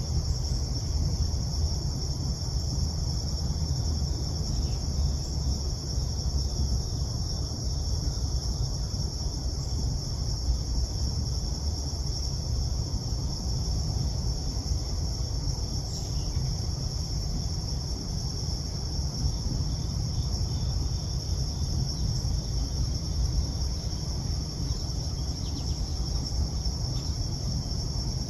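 Crickets singing in a steady chorus, one continuous high-pitched trill without pauses, over a steady low rumble.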